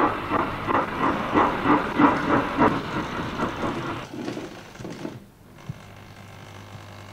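O gauge model train, a small tank locomotive shunting wagons, running along the track with a rhythmic clatter of about three beats a second. It fades and stops about five seconds in, leaving a low steady hum.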